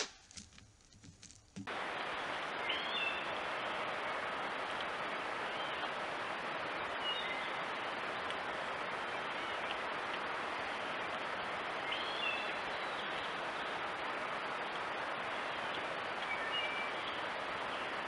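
Steady, even hiss of outdoor background noise through a trail camera's microphone, starting abruptly about two seconds in, with a few short bird chirps over it. Before that there is a quieter stretch, opened by a brief knock.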